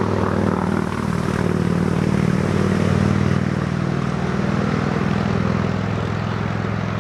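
A loud, steady engine drone with a low humming note under it, which cuts off suddenly at the very end.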